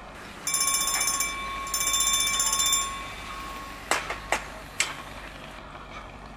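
A bell rings in two fast, trilling bursts of about a second each, its tone dying away after the second, followed by three sharp metallic knocks.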